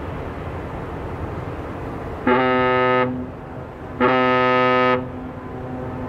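Ship's horn sounding two short blasts, each just under a second long, over a steady low rumble.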